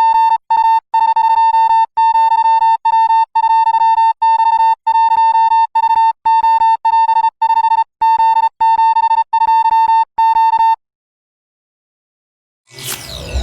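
A steady electronic beep tone, broken by brief gaps into pulses of uneven length, stops abruptly; after about two seconds of silence a falling whoosh and a deep bass boom come in near the end as dark music begins.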